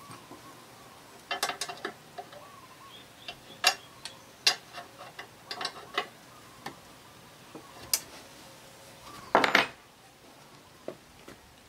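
Hand-handling sounds from the aluminum table and tilt mechanism of a Ryobi BS904G 9-inch bandsaw as the table is squared to the blade: scattered sharp metal clicks, taps and knocks. The loudest is a short rattle about nine and a half seconds in.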